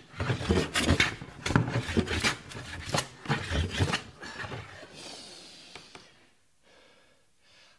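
Metal bench plane cutting across burr elm: a fast run of short rasping strokes, about two a second, that stops about four seconds in.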